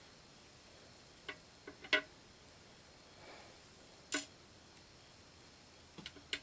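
A few light, sharp clicks and taps of hard plastic as small toy pieces are handled and set down on a clear plastic display case: a quick cluster of three clicks near the start, one about four seconds in and two more near the end.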